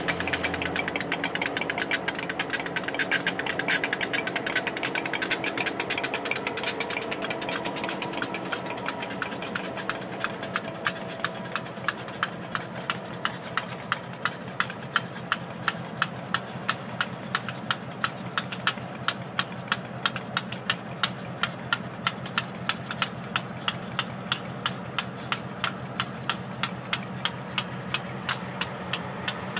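Former LIRR MP15AC and GP38 diesel-electric locomotives idling together, their EMD two-stroke diesels making a rhythmic clatter. The sound is loudest and busiest for the first several seconds, then grows quieter after about eight seconds, leaving a regular beat of a few pulses a second.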